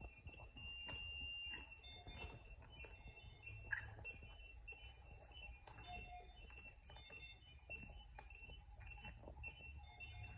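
Faint electronic beeping from hospital medical equipment: short high beeps at a few fixed pitches, repeating irregularly, over a low steady hum.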